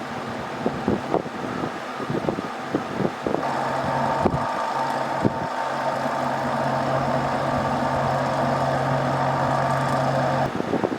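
Air conditioner outdoor unit running with a steady hum, which comes in about three and a half seconds in and cuts off suddenly near the end. Irregular knocks and rattles come before it.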